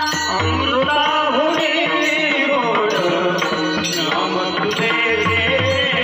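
A woman singing a Marathi abhang (devotional song) in a high, strong voice, with drum accompaniment.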